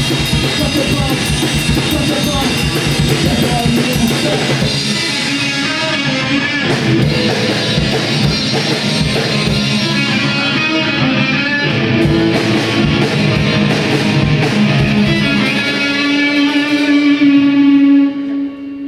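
Live rock band playing, with electric guitar and a full drum kit. Near the end the drumming stops and a held chord rings on, getting louder, then cuts off sharply.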